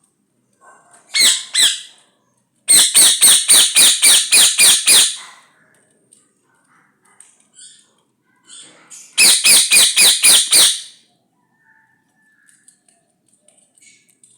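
Ringneck parrot screeching in loud, harsh repeated calls in three runs: two calls, then about ten in quick succession at roughly four a second, then after a pause about seven more.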